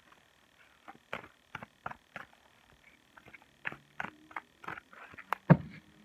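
A large deck of tarot cards being shuffled by hand: irregular soft card slaps and flicks, with one louder knock about five and a half seconds in.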